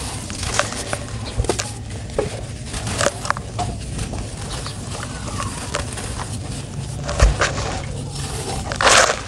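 Hands crushing and crumbling dry, dusty lumps of earth: irregular gritty crunches and crackles, with a dull thud a little after halfway and a louder crunch near the end.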